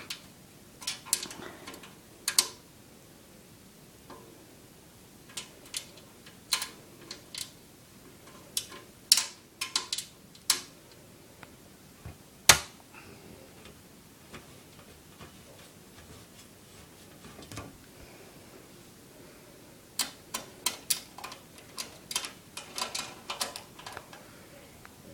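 Screwdriver and screw working against a computer case's metal panel while the power supply is screwed in: scattered sharp clicks and metallic taps, one louder knock about halfway through, and a quick run of clicks near the end.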